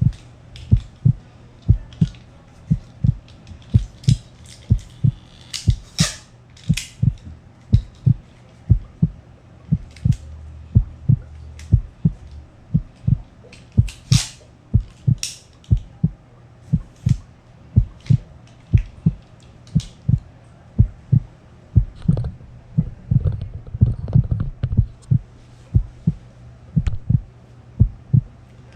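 A steady, low heartbeat-like thumping beat, nearly two thumps a second over a low hum, laid over the video as a suspense backing track. A few scattered clicks and knocks sound over it, the sharpest about six and fourteen seconds in.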